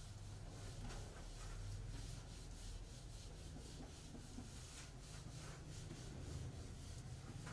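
Whiteboard eraser rubbing across a whiteboard in faint, repeated back-and-forth swipes as the board is wiped clean.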